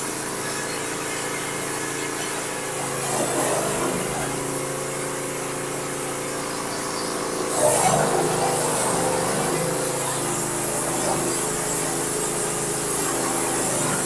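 Large engine-driven bandsaw sawmill running and cutting through a wide maple log as the saw head is pushed along by hand. The engine note holds steady, then grows louder and wavers under the load of the cut from about eight seconds in.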